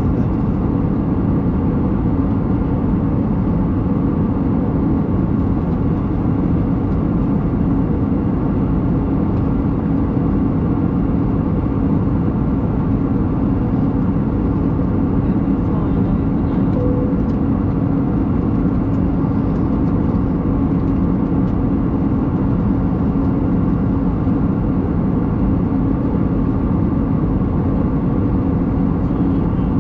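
Cabin noise of an Airbus A320neo in cruise, heard from a window seat: a steady rush of airflow and engine noise from its CFM LEAP-1A turbofans, with a steady low hum under it.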